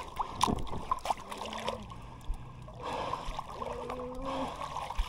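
Swimming-pool water lapping and trickling, with small splashes and drips as swimmers move about in it.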